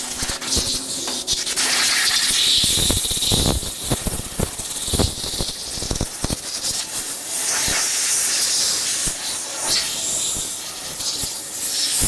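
Steady hissing rush of air, with scattered knocks and clicks.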